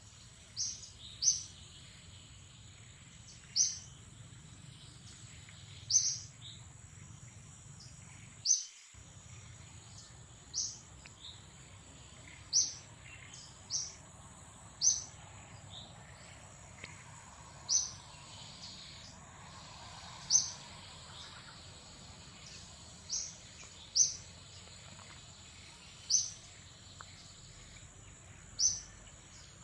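A bird chirping: short, sharp, high chirps that fall in pitch, repeated about every one to three seconds.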